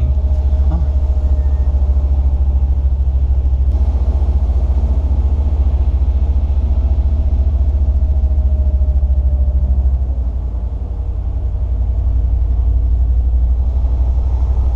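Land Rover Discovery 2 driving slowly on beach sand: a steady low rumble of engine and running gear, dipping briefly about ten seconds in.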